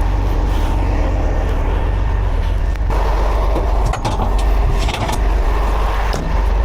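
Heavy tow truck's diesel engine running steadily, a loud low rumble with a few faint knocks.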